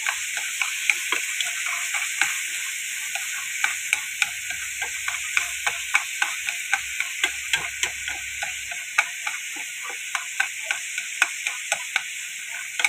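Chopped tomatoes sizzling in hot oil in a frying pan while being stir-fried with chopsticks. Steady frying hiss, with frequent irregular taps and scrapes of the chopsticks against the pan.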